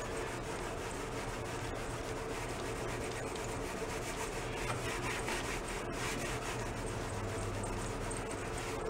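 Scouring pad scrubbing steadily back and forth on painted metal, working lacquer thinner in to strip black spray paint off the original finish.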